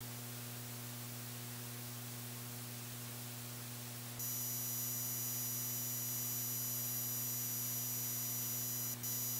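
Steady electrical hum and hiss on the Zoom SampleTrak ST-224 sampler's audio output. About four seconds in, as a button is pressed and the unit starts loading, a thin high-pitched digital whine joins the hum, then flickers near the end.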